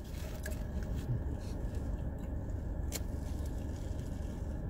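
Steady low hum of a car idling with its air conditioning running, heard inside the cabin, with a few faint clicks of small handling noises and a sharper click about three seconds in.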